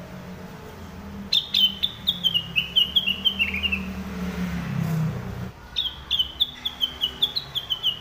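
Caged cucak rengganis (a bulbul) singing: two runs of quick, clear whistled notes, each note sliding down in pitch, with a short pause between the runs. The first run steps lower as it goes.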